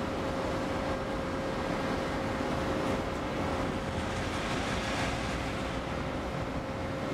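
Steady rumble of idling heavy machinery with a constant mid-pitched hum over it.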